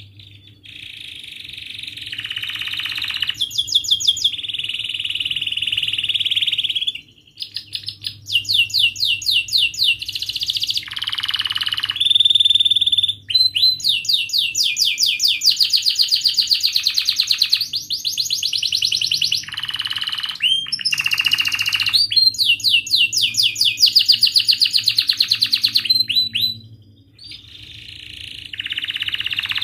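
Domestic canary singing a long, loud song of fast rolling trills and rapid chirped notes, broken by a few short pauses.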